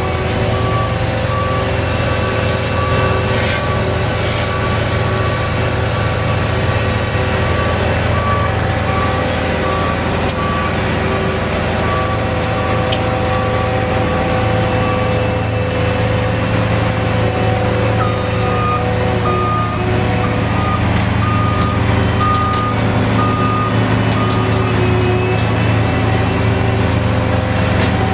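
Heavy diesel engines of road-milling equipment and trucks running steadily, with a backup alarm beeping about once a second for the first half; later a second, slightly higher-pitched backup alarm beeps for several seconds as another machine reverses.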